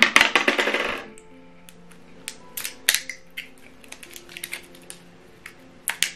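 Scattered small clicks and taps from a small remote control's battery compartment and battery being handled, with a dense rustle in the first second. Quiet background music runs underneath.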